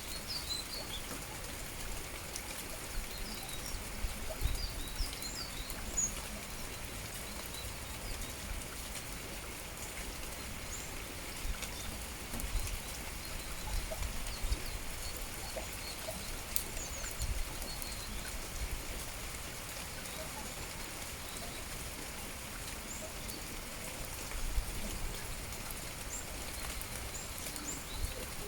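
Small songbirds chirping in short, high calls scattered throughout, over a steady hiss of light rain, with occasional low rumbles.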